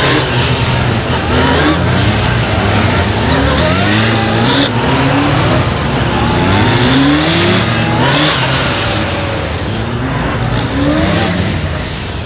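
Honda police motorcycle engine revving in short rising bursts, about one a second. The throttle is opened and closed again and again as the bike is ridden through the tight turns of a timed course.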